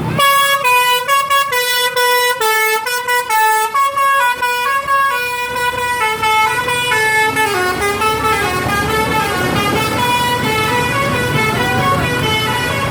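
Indonesian 'telolet' bus horn, a multi-note musical air horn, playing a quick tune of stepped notes that starts suddenly. Over the second half the tune continues in lower, sliding notes while the bus engine's rumble grows louder.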